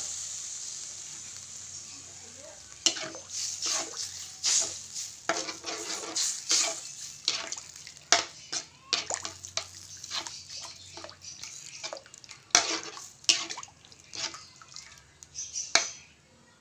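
Hot liquid hissing in a wok, fading over the first few seconds. Then a metal spoon stirs it, with a string of irregular clinks and scrapes against the pan, the loudest a little before the end.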